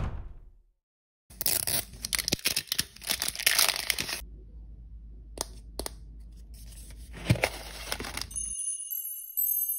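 Plastic wrapping crinkling and tearing as it is stripped off a toy capsule ball. This is followed by quieter rustling and a few sharp plastic clicks as the ball's halves are pried apart. A short chiming jingle starts near the end, after a sharp knock at the very start.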